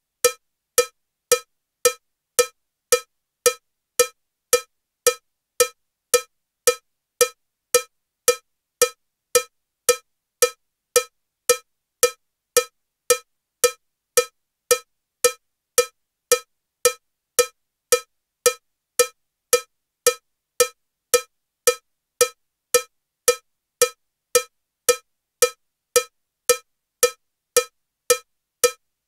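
Metronome at 112 beats per minute with a cowbell sound: short, identical cowbell strokes, evenly spaced at just under two a second.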